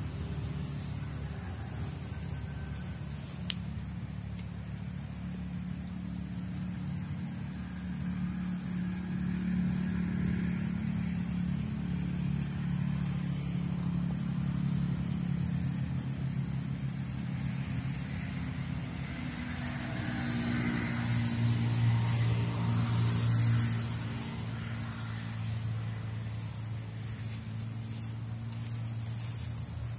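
A motor engine running at some distance, its pitch shifting and loudest a little past 20 seconds in, over a steady high-pitched insect drone.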